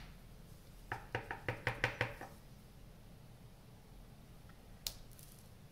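Light taps and clicks of a clear acrylic stamp block being handled and pressed onto cardstock: a quick run of about eight taps a second or so in, then a single tap near the end.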